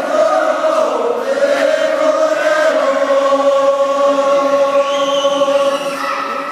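Men singing a Sherpa shepru dance song together. About halfway through the tune settles into one long held note, which stops shortly before the end.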